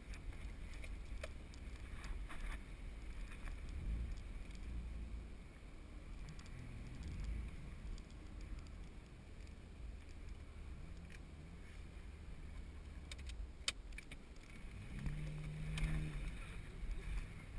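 Car driving, heard from inside the cabin: a steady low road and wind rumble with scattered light knocks and clicks. Near the end a steady engine note comes up.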